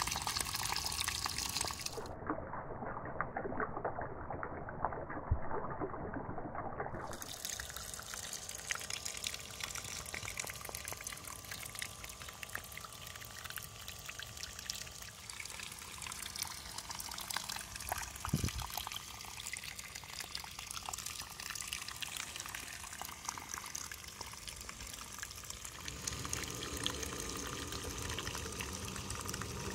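Water gushing from the outlet pipe of a small homemade water pump and splashing onto wet mud, a steady pouring sound. It changes abruptly a few times, near the start, about a quarter of the way in and near the end.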